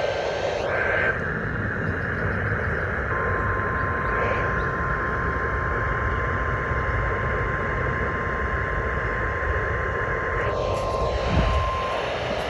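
NOAA Weather Radio warning alarm tone, a single steady 1050 Hz beep held for about nine seconds, over the receiver's constant static hiss. It starts about three seconds in and cuts off near the end. It is the weekly test of the alarm that sets off weather-alert receivers.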